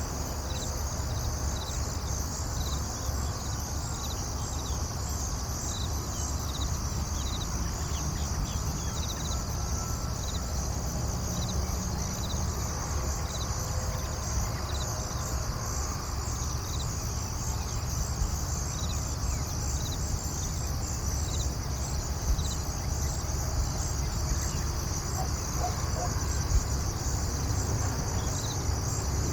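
Insects, cricket-like, chirping in steady, evenly repeated high-pitched pulses over a steady low rumble of background noise.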